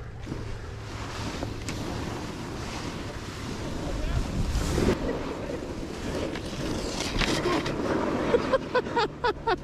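Skis sliding and scraping over packed snow, with wind noise on the microphone; the sound swells around the middle.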